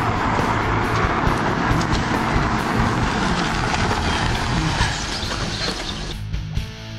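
Steady rushing and rumbling vehicle noise, which drops away about six seconds in as music comes in.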